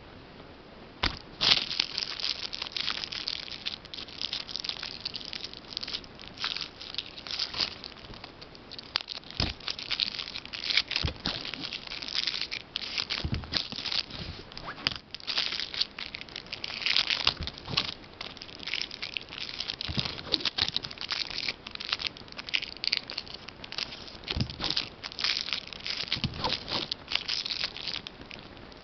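Plastic packaging crinkling and rustling, with sharp clicks and snaps, as makeup brushes are unwrapped and taken out; it begins about a second in and goes on in uneven bursts.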